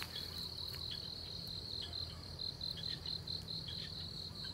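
Insects chirping in a steady high-pitched trill that pulses in rapid rhythm, over a low steady hum.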